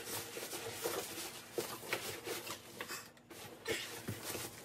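Styrofoam end cap and cardboard carton rubbing and scraping as a plastic-wrapped PC case is worked out of its shipping box, in a run of short, irregular scrapes and rustles.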